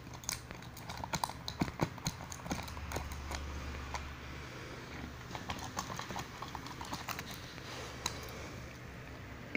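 A ferret gnawing a round black lid: irregular sharp clicks and knocks of teeth on the hard lid, coming thick and fast at first and then more spread out.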